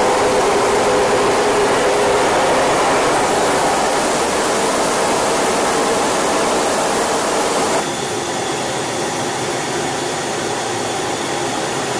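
Steady jet roar and rushing air of an F/A-18 Super Hornet in flight, with a faint hum under the noise. It drops abruptly to a slightly quieter roar about eight seconds in.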